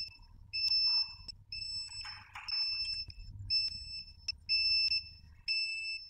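Solax Transformer scooter's warning beeper sounding in a steady pattern of high beeps, about one a second and each about half a second long, as the scooter folds on the remote's command. A low motor hum runs underneath, with a few short mechanical clicks.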